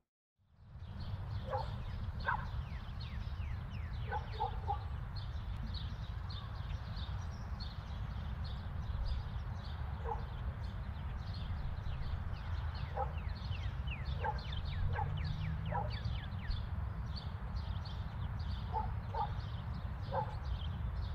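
Outdoor ambience fading in just after the start: many small birds chirping over a steady low rumble, with occasional short, louder animal calls, some in pairs.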